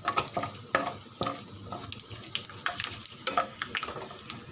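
Dried red chillies and bay leaves sizzling in hot oil in a steel kadhai, with irregular sharp crackles and pops as the whole spices are tempered, and a slotted ladle stirring them in the pan.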